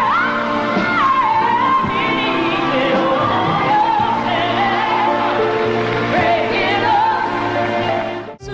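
Music: a song with a high, gliding sung melody held over band accompaniment, with a sudden brief dropout near the end where the audio cuts to a different passage.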